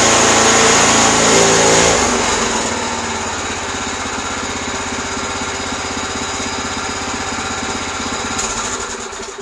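Predator small gas engine running under load as the machine's belt drive is tested. It drops to a quieter, steady run about two seconds in and cuts off at the very end.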